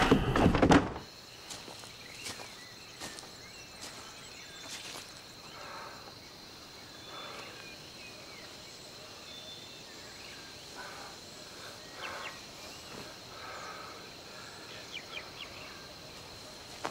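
A loud burst cuts off about a second in. After it comes quiet tropical forest ambience: a steady high insect drone, with faint scattered chirps and small rustles.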